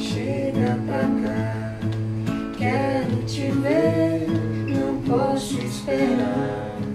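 Several acoustic guitars strumming and picking a gentle pop song, with a voice singing a melody over them.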